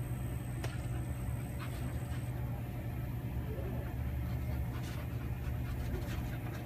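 An Australian Cattle Dog panting, over a steady low hum.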